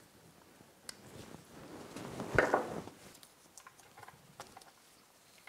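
Gloved hands working the water pickup tube off its fitting on an outboard's lower unit: soft rustling and scraping that swells to a sharp knock about two and a half seconds in, with a few light clicks around it.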